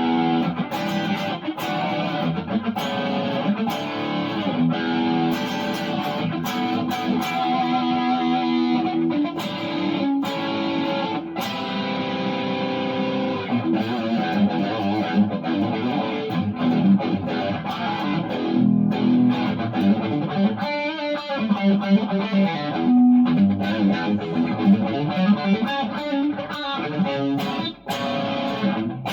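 Fender Thinline electric guitar played as rhythm through a slightly overdriven crunch tone, chords and riffs starting right at the outset and running on with a brief break near the end.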